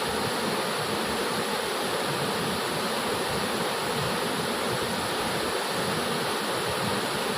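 Waterfall's steady rush of falling water, an even hiss with no let-up, with a thin high whine over it.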